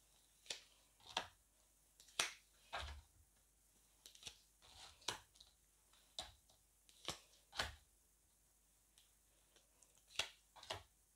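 Tarot cards being drawn from the deck and laid down on a table: a string of short, crisp card snaps and slaps, coming irregularly about every half second to a second, with a couple of longer pauses.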